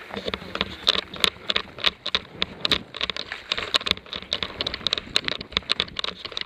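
Running footsteps with loose gear rattling: quick, irregular steps and knocks, several a second.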